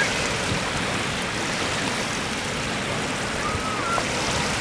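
Small waves lapping and washing on a shallow shoreline: a steady rush of water.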